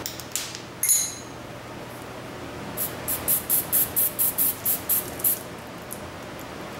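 Aerosol spray can squirted in a quick run of about a dozen short bursts, roughly four a second, on the generator's oil line fittings. A single metallic clink comes about a second in.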